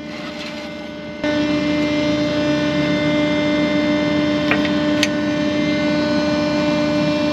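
A rollback tow truck's hydraulic winch cuts in about a second in and runs as a loud, steady hum at one constant pitch while the camper is pulled up the bed. Two sharp clicks come near the middle.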